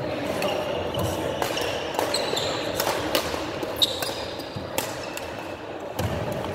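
Badminton rackets striking a shuttlecock in a fast doubles rally, with the loudest hit, an overhead jump smash, just before four seconds in. Court shoes squeak on the wooden floor, and the hall echoes.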